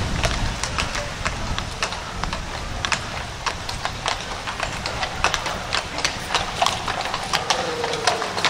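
Horses' hooves clip-clopping: many quick, irregular strikes from the team of a horse-drawn carriage.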